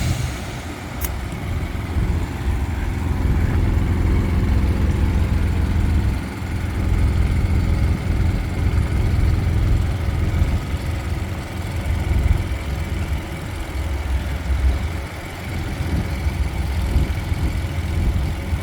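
Heavy diesel engine running steadily at low revs, a deep rumble that eases briefly a couple of times.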